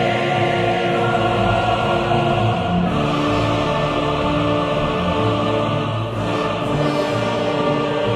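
Choral soundtrack music: a choir singing long held notes, the chords changing about every three seconds.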